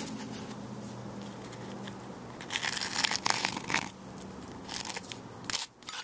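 A strip of self-adhesive sound-deadening foam being cut and handled: faint at first, then short bursts of rustling and crackling from about halfway through.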